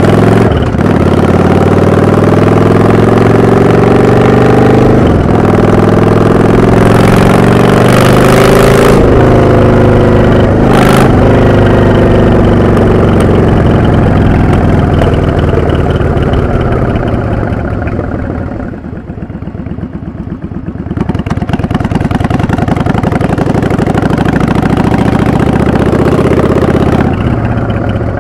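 Yamaha XVS650 V-Star bobber's air-cooled V-twin exhaust on the move: it accelerates with rising pitch, breaking off for upshifts twice, then the revs sink. About two-thirds of the way through it goes quieter for a few seconds with the throttle closed, then pulls up again.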